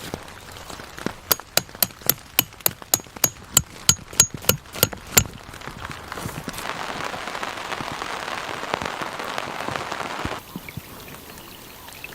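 Rain falling steadily, with a quick run of about a dozen sharp knocks, roughly three a second, in the first half. The rain hiss then swells and cuts off abruptly near the end.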